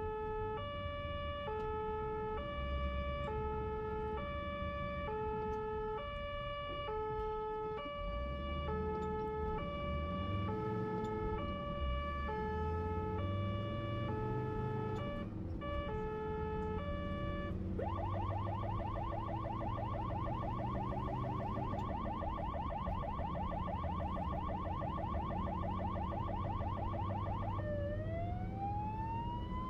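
Ambulance siren heard from aboard the ambulance, with its engine accelerating underneath. It sounds an alternating two-tone hi-lo pattern, switches about 18 seconds in to a rapid warble, then near the end to a slow rising wail.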